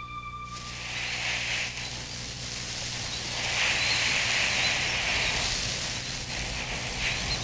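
Desert sand pouring in a thin stream down a rock face, a steady hiss that swells twice, most strongly about halfway through. Music fades out in the first second.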